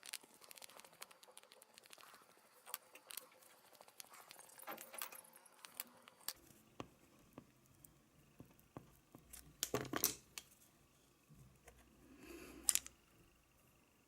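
Small metal parts and hand tools being handled while the back plate is taken off a small two-stroke model engine: scattered light clicks and taps, with a louder clatter about ten seconds in and another near the end.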